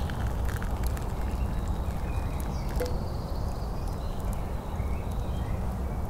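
Hot water poured from a camping pot into a small cup of fresh herb leaves, heard as a steady rush of noise, with a few faint crackles.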